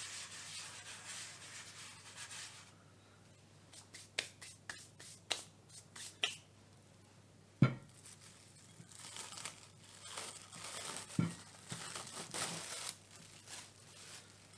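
A hand sweeping flour across a tabletop with a soft hiss, then plastic cling film crinkling and being peeled off a glass bowl, with a sharp knock about halfway through as the bowl is set down on the table and another, lighter knock a few seconds later.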